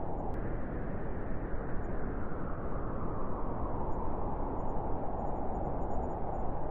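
Wind blowing steadily as a low, rushing noise with no gusts or breaks. Its pitch sags lower in the middle and rises again near the end.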